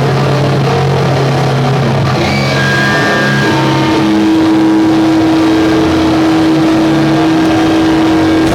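Live doom metal band with heavily distorted guitars and bass holding long, sustained notes at high volume. A low chord rings out first, then a single held note sustains for the last five seconds, with no drum hits.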